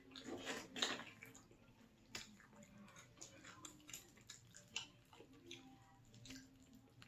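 Close-up chewing and wet mouth smacks of someone eating cheesy pizza dip: faint, irregular soft clicks, with a louder burst of them about a second in.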